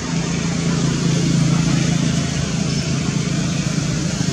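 Steady low engine hum, a little louder about a second in, over an even rushing background noise.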